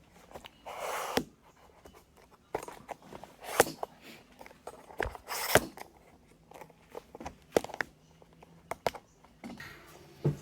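Irregular clicks, light knocks and a few brief rustles of hands handling small hard computer parts.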